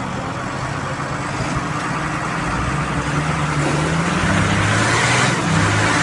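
Farm tractor diesel engine running under load and building revs, getting louder from about halfway through as it pulls against a tow cable.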